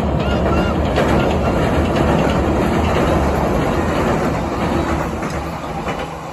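Meitetsu electric train rolling across a steel truss bridge: a loud, steady rumble of wheels on rail with a few sharp clacks, easing slightly near the end.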